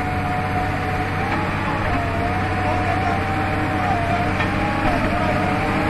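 Bulldozer's diesel engine running steadily under load, with a high, wavering whine over it.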